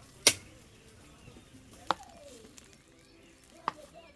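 Three sharp knocks, each about a second and a half apart, the first the loudest, with faint voices in between.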